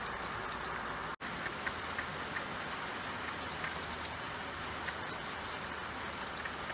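Steady rain falling, with a few separate drops ticking through the hiss. The sound cuts out for a split second about a second in.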